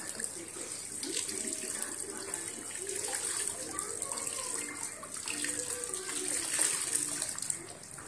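Water trickling and splashing into a tub as wet trousers are twisted and wrung out by hand.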